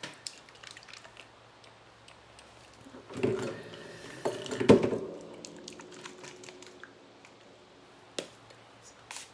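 Light taps and small handling noises of paper and card pieces on a tabletop, with a louder cluster of knocks about three to five seconds in that rings on faintly for a couple of seconds, and one more sharp tap near the end.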